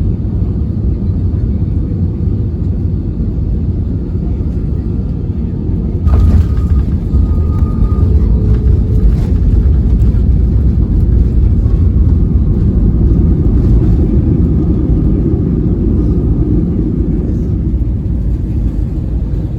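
Airliner cabin noise during landing: a steady, loud, low rumble. About six seconds in it jumps suddenly louder with a sharp knock and stays louder and rougher, as the wheels touch down and the landing roll begins.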